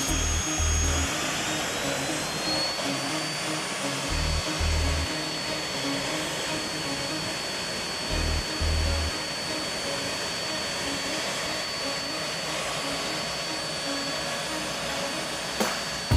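Jet turbine noise from a Folland Gnat's turbojet and its ground air start unit during an engine start: a steady rushing roar with high whining tones that glide up in pitch about a second in as the turbine spools up, then hold steady. Wind buffets the microphone a few times.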